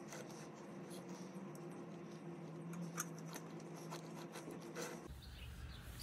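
Faint scattered clicks and light rubbing of hands handling small brake parts at a car's front brake caliper bracket, one sharper click about three seconds in, over a steady low hum.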